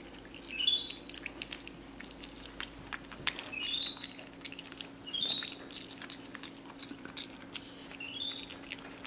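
Capuchin monkey chewing spaghetti with wet lip-smacking clicks, broken several times by short high squeaks that rise in pitch.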